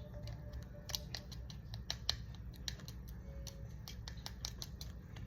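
Slime being worked by hand, making irregular sharp clicks and pops, several a second.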